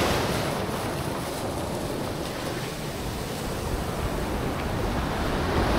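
Small waves washing up on a sandy beach, a steady hiss of surf that swells slightly near the end, with wind rumbling on the microphone.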